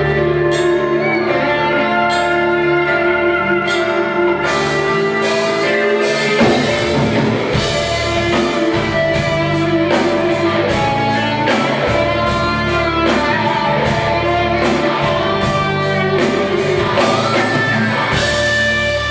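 A live band plays the instrumental introduction of a rock ballad, with a guitar carrying the melody over sustained chords. A steady drum beat comes in about four seconds in.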